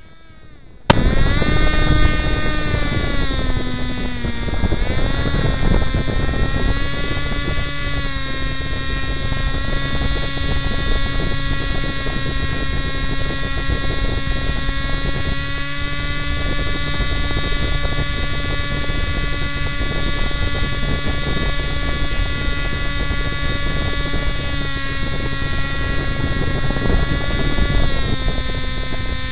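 Powered paraglider trike's engine and caged pusher propeller running hard during takeoff and climb: a loud, steady engine note that cuts in abruptly about a second in. Its pitch dips and recovers a few seconds later, then holds steady with small shifts near the end.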